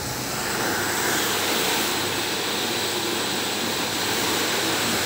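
Automatic carpet-washing machine running, its rotating brushes and water jets scrubbing a rug on the conveyor: a steady hissing whir with a faint high whine.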